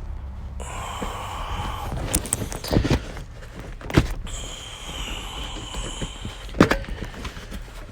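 Rustling and scraping from hands working plastic interior trim clips and carpet in a car, with about three sharp knocks or clicks a second or two apart.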